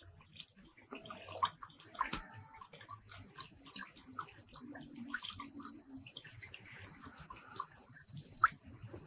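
Water splashing and dribbling as a car is washed by hand, in small irregular spatters.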